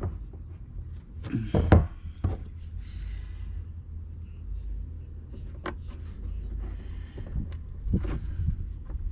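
A few knocks and clunks of tools and parts being handled, the loudest a quick double knock about a second and a half in, over a low steady rumble.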